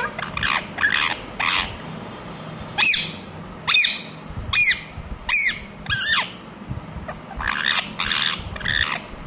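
Ringneck parrot (rose-ringed parakeet) screeching. Rough squawks come at the start, then a run of five sharp, high calls less than a second apart in the middle, and harsher squawks again near the end.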